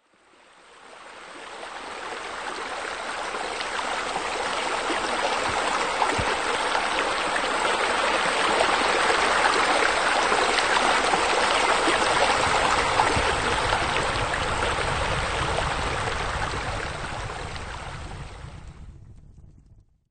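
Steady running-water sound of a small rock waterfall spilling into a pond. It swells in over the first few seconds and fades out near the end.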